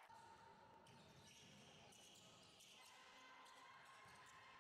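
Faint sound of a basketball being dribbled on a hardwood gym court, with the reverberant background of a large sports hall.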